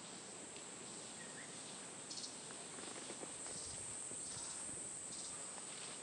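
Steady high-pitched drone of rainforest insects. Short pulsing calls break in a few times, and there is a brief chirp about one and a half seconds in.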